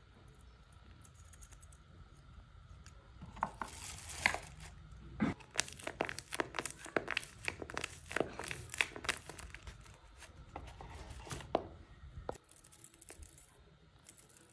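Crinkling and crackling of a tape-covered paper squishy squeezed and handled between the fingers, a dense run of quick crackles from about four seconds in until about eleven seconds.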